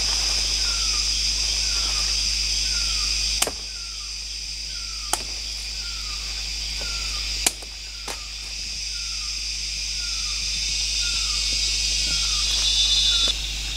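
Forest insects keep up a steady high hiss, joined by a short falling note that repeats about every half second. Over it come a few sharp chops, as from a blade striking wood; the loudest fall about three and a half and seven and a half seconds in.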